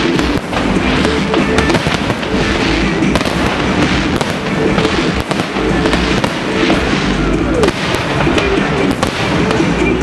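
Fireworks going off in a continuous run of bangs and crackling over loud music.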